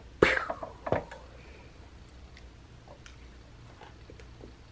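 Two sharp knocks within the first second, then faint scattered clicks of a plastic fork in a plastic takeout container and quiet chewing.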